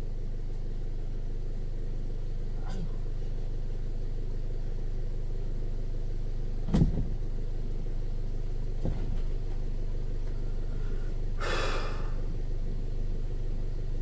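Car engine idling steadily with a low hum. There is a single knock about seven seconds in and a short burst of noise a few seconds later.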